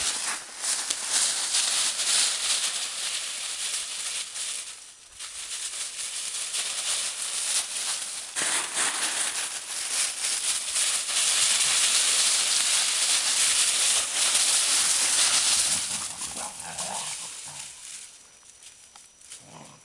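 Dry fallen leaves rustling and crunching as dogs run and play through thick leaf litter, dying down near the end.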